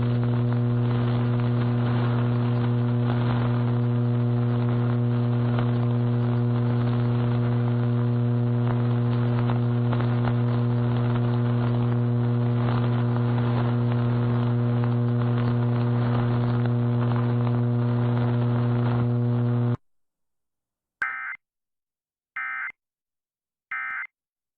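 A loud, steady electrical hum on the broadcast audio that cuts off suddenly about 20 s in, followed by three short, evenly spaced data bursts: the Emergency Alert System end-of-message signal closing the national EAS test.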